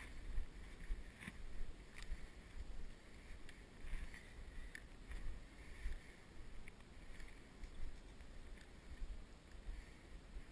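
Footsteps walking on a dry sand path, a soft swish about every half second, with wind rumbling on the microphone and a few small clicks.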